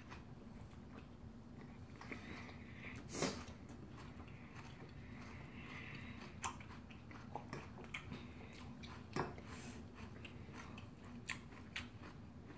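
Chewing and mouth sounds of people eating, picked up close, with a few sharp clicks of metal forks against china plates.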